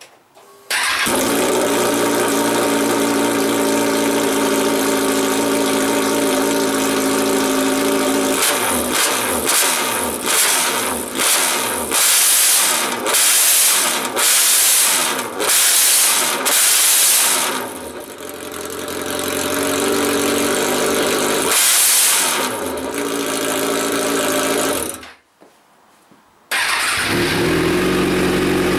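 Kawasaki Z1000 inline-four running on Arrow Race-Tech header pipes with no end cans, painfully loud: it idles, then is blipped in about nine quick revs and once more a few seconds later, before cutting off. After a brief silence it idles again through the Arrow carbon silencer with its baffle removed.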